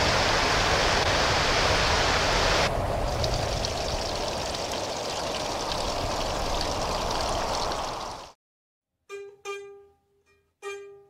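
A fast, shallow river rushing over stones, loud and steady. About two and a half seconds in it gives way to a softer, even hiss. Near the end the sound cuts off suddenly, and three short, pitched musical notes ring out and fade one after another.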